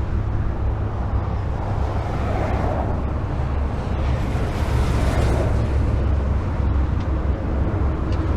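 Highway traffic: a steady low rumble of tyres and engines, with passing vehicles swelling the noise about two seconds in and again around five seconds.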